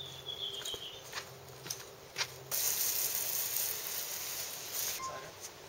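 Garden hose spraying water in a steady hiss, with a few light knocks before the spray grows louder about halfway through and then stops near the end.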